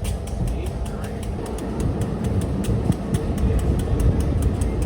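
Passenger train running along the track, heard from one of its cars: a steady low rumble with a fast, even run of clicks.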